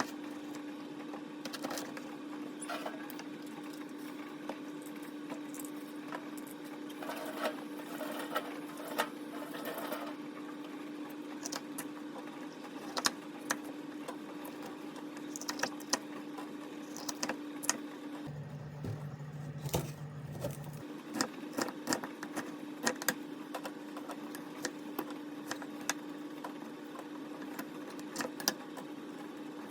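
Light clicks and knocks of kitchen utensils and containers being handled, scattered irregularly over a steady electrical hum. The hum drops out for about three seconds a little past halfway, when a lower hum briefly replaces it.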